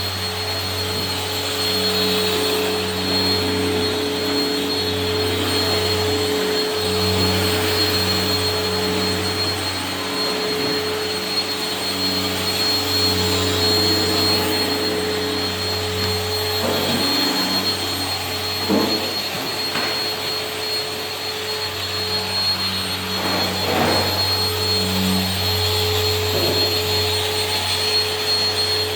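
Rotex random-orbital sander running steadily on a Corian solid-surface countertop, with a constant high whine over a low hum, sanding the worn, scratched surface down to remove scratches and dullness.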